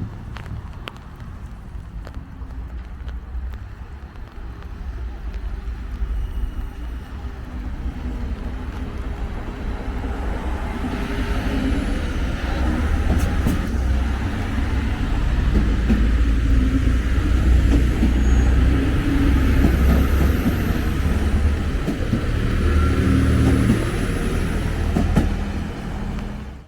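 Trains pulling out of a station: a low rumble of engines and wheels on rails that builds up from about ten seconds in and stays loud.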